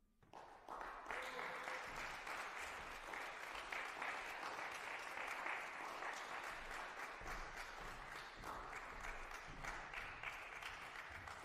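Audience applause: clapping breaks out less than a second in, quickly fills out and holds steady.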